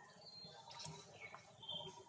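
Three or so faint, short, high-pitched animal chirps and squeaks, spread through an otherwise quiet stretch.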